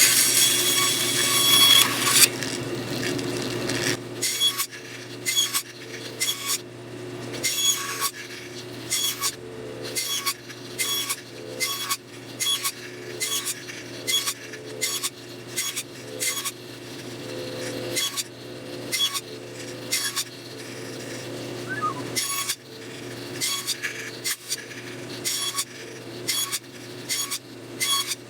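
Power saw cutting through a wooden dowel for about two seconds, then running on with a steady hum. Over the hum come short, sharp wooden clicks and knocks about once a second as cut dowel pieces are handled.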